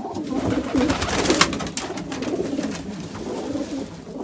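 Domestic pigeons cooing in a loft, several birds' low warbling calls overlapping, with a short sharp noise about a second and a half in.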